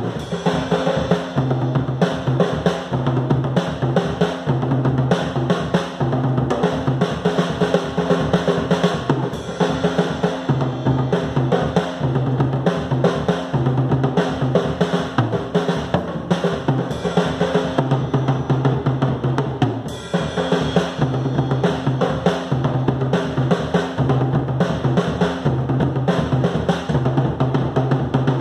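Acoustic drum kit played with sticks in a continuous, busy pattern of snare, tom and bass drum strokes, with a brief drop about two-thirds of the way through.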